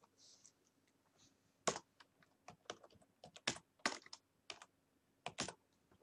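Typing on a computer keyboard: a short, irregular run of sharp key clicks, the first the loudest, over a faint steady hum.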